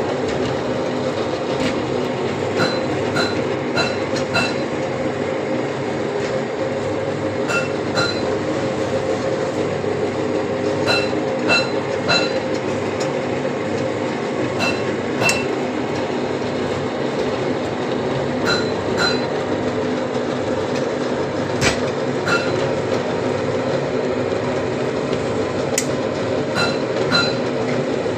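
Steady mechanical drone with a few fixed humming tones, broken by short, sharp metallic clinks that ring briefly, often in pairs, every second or few seconds.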